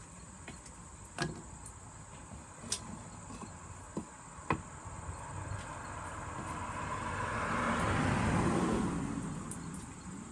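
A car passing by, rising to its loudest about eight seconds in and fading away, over a few scattered light clicks earlier on.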